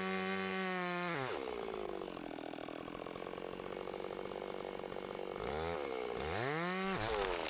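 Two-stroke chainsaw running at full throttle, then dropping sharply to a low, rough speed about a second in. Near the end it revs up and back down twice in quick blips.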